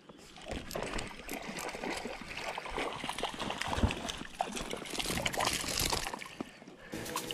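Hooked pike thrashing at the water's surface: a run of irregular splashes that starts about half a second in and dies away near the end as the fish is netted.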